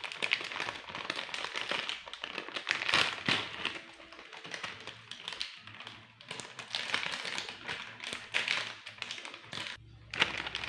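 Plastic wrapper of a KitKat party pack crinkling and tearing as it is pulled open by hand. The crackling comes in two busy stretches with a quieter spell between.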